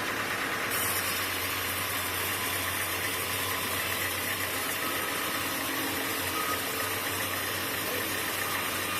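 Sawmill machinery running steadily, a dense mechanical noise over a low engine-like hum. The hum and hiss step up a little under a second in.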